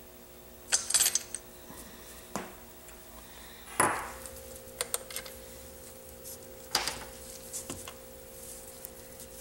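Metal engine parts and tools clinking and knocking while the cam chain tensioner is worked out of a Honda CB450 engine: about half a dozen separate clinks, the loudest about four seconds in. A faint steady hum comes in about four seconds in.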